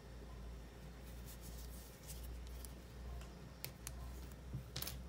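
Faint rustling and light scratchy ticks of an aluminium crochet hook pulling cotton yarn through stitches, the sharpest tick near the end, over a steady low hum.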